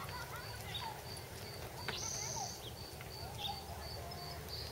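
Birds chirping in short rising and falling calls over a high chirp repeating evenly about three times a second, with a low background rumble. A brief high buzz comes about two seconds in.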